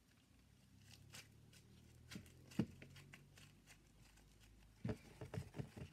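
Yellow butter slime being stretched and squished by hand, giving faint sticky clicks and crackles, a few apart at first and a quicker run of them near the end.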